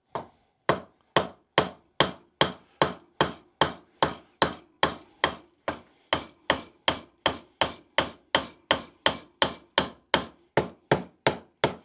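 A hammer striking the stuck shaft adapter in a TaylorMade SIM driver head. There are about thirty sharp blows in a steady rhythm that quickens slightly, each with a brief ring. The blows are meant to drive out the adapter, which is already bent and ruined.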